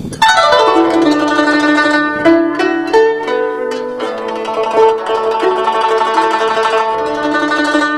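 Guzheng playing a lyrical melody in the middle and low register, blending sustained tremolo (yaozhi) notes with single plucked notes.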